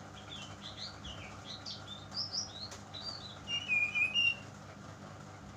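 Young brown-chested jungle flycatcher, still in spotted juvenile plumage, singing its practice song: a string of short chirps, then a louder run of notes about three and a half seconds in.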